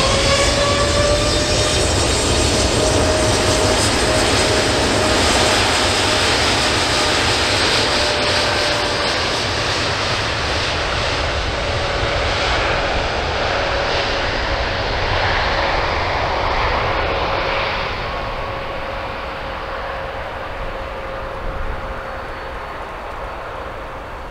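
Boeing 787-9's twin GEnx-1B turbofans at takeoff power as the jet goes away after takeoff: a broad roar with a whining tone that slides slowly down in pitch, fading gradually toward the end.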